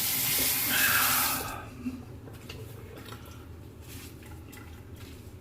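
Sink tap running, shut off about a second and a half in, followed by faint drips and small clicks.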